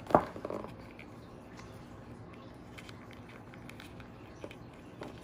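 Handling noise of a doll's shoe being worked onto its foot: a short thump just after the start, then faint scattered small clicks and soft rubbing.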